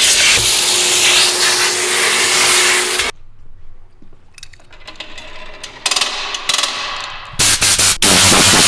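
RIDGID wet/dry shop vacuum running with a steady whine, switched off about three seconds in. A few seconds of small clicks and handling noises follow, then near the end short blasts and a steady hiss of compressed air from a Tornador blow gun.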